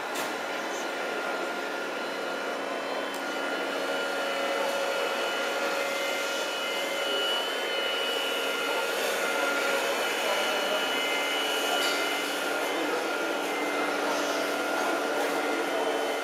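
Motors and hydraulic pump of an RC scale model wheel loader (a Liebherr L576 model) running with a steady electric whine as it works its bucket.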